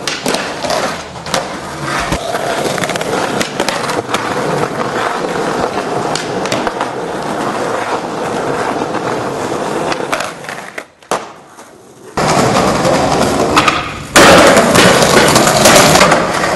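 Skateboard wheels rolling on concrete, with sharp clacks of the board popping and landing through several tricks. A short quieter stretch about eleven seconds in, and the rolling is louder after it.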